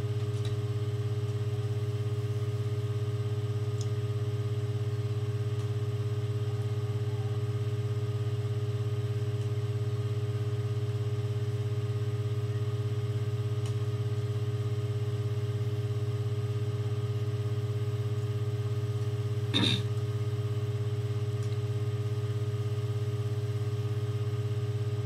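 Steady low hum with a few faint even tones above it, and one brief sound about twenty seconds in.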